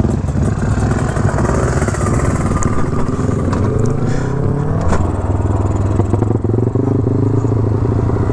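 Motorcycle engine running while riding. Its pitch falls over a few seconds as it slows, then holds a steady note, with a sharp click about five seconds in.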